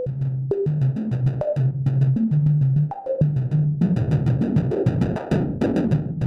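Plaits macro-oscillator playing its synthesized percussion models: a low electronic bass drum about twice a second, with snare-like hits and fast hi-hat ticks. Short pitched blips jump in pitch as the knobs are turned.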